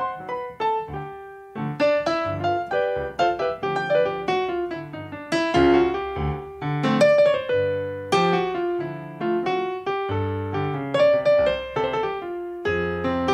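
Digital keyboard played with a piano voice: a solo instrumental passage of left-hand bass notes and right-hand chords and melody, each note striking and fading.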